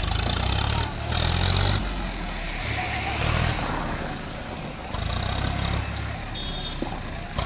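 Swaraj tractor's diesel engine revving hard in repeated surges, rising and easing off several times, as it hauls a trailer heavily loaded with bricks and labours under the load.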